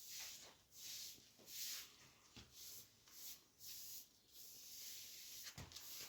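Near silence, with faint irregular scratchy rustles.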